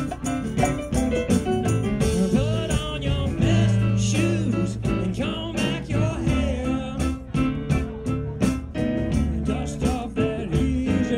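Live rock band playing an instrumental passage: electric guitar lines with bent notes over bass and a steady drum beat.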